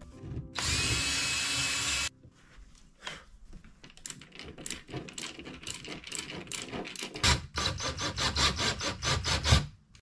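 A cordless drill runs steadily for about a second and a half, drilling into the wall. Then comes a long run of quick clicks and scrapes as a screw is turned in by hand with a screwdriver, growing faster and louder near the end.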